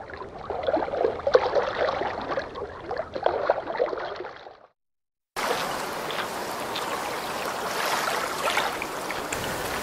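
Lake water lapping and sloshing. It cuts out completely for under a second about halfway through, then comes back brighter and hissier.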